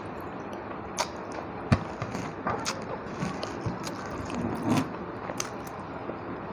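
Close-up eating sounds: a person chewing, with irregular wet smacks and mouth clicks.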